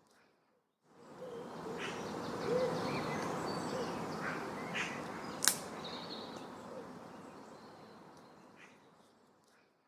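Outdoor nature ambience with birds chirping now and then over a steady hiss. It fades in about a second in and slowly fades out near the end, with one sharp click about halfway.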